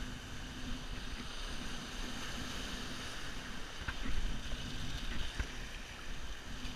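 Surf washing and foaming over rocks, with wind buffeting the microphone as a steady low rumble. A couple of faint clicks sound about four and five seconds in.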